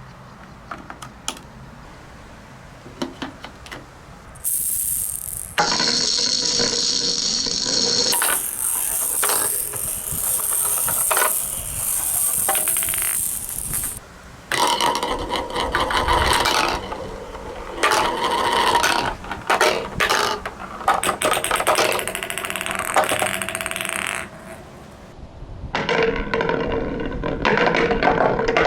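Marbles rolling and clattering down a marble run track: runs of rapid clicking and rattling, stretches of steady rolling noise with a high ringing tone, and a few brief quieter gaps.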